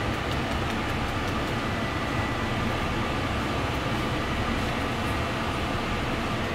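Steady mechanical rush and low hum of commercial kitchen machinery, with a faint high whine and a few light clicks.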